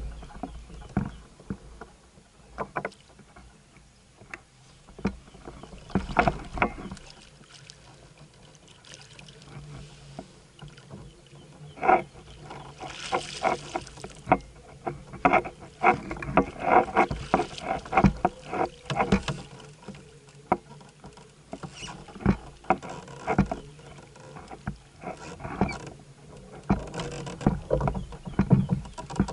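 Irregular knocks and clatter against a plastic fishing kayak's hull and gear while a hooked fish is fought to the boat, with water splashing at the surface as the fish thrashes beside the kayak about 13 seconds in.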